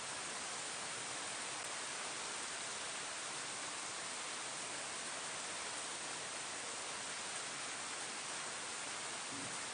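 Steady rain falling on leaves: an even, unbroken hiss.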